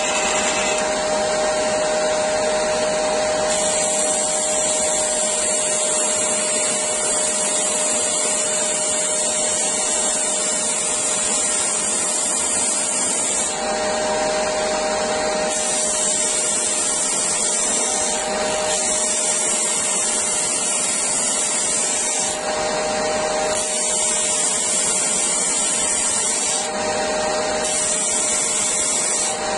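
Parkside PBTS 370 B2 belt-and-disc sander running steadily on its 370 W induction motor, with a vacuum extracting the dust, while a piece of fir is sanded on the 150 mm disc at a 45-degree angle. A high sanding hiss comes and goes in stretches of a few seconds as the wood is pressed to the disc and eased off.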